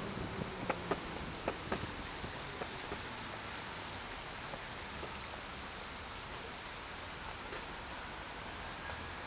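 Steady hiss of outdoor city street noise, with a few light clicks in the first two seconds.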